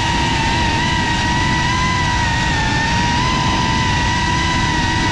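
FPV quadcopter's motors and propellers whining at a nearly steady pitch while it cruises, with a low rumbling noise beneath.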